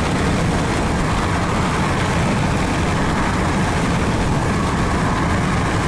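Wind rushing in through the open window of a moving car and buffeting the microphone, with road noise beneath: a loud, steady rush with no change.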